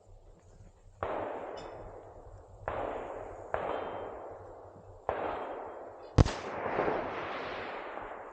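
Five gunshots at an uneven pace, each followed by a long echoing tail; the fifth, about six seconds in, is the sharpest and loudest.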